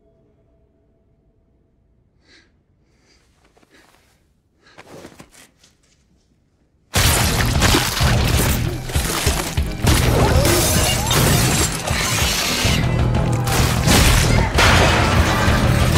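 Film sound design: a hush with a few faint soft sounds, then about seven seconds in a sudden, loud, dense barrage of smashing and impact effects as slimy tentacles lash out and tear into a victim, over loud dramatic music.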